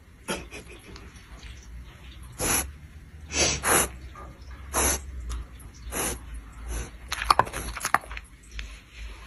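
A dog sniffing and snorting at a treat in front of its nose: short, loud, noisy sniffs, about six of them a second or so apart, with a few squeaky, wheezy breaths near the end.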